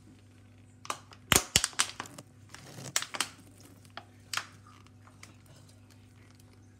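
Thin plastic crinkling and crackling as it is handled and squeezed: a cluster of sharp crackles about one to three seconds in and one more a little later.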